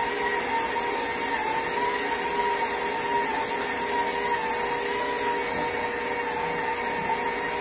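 KitchenAid bowl-lift stand mixer running steadily with its dough hook kneading pasta dough: an even motor hum with a steady whine.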